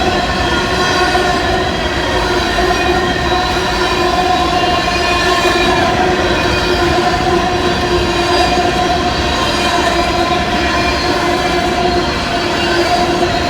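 Freight train rolling past, a steady rumble of the cars with a continuous, steady squeal of several ringing tones over it.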